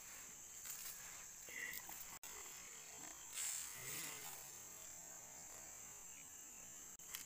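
Steady, high-pitched drone of insects. About three and a half seconds in there is a brief, slightly louder noise.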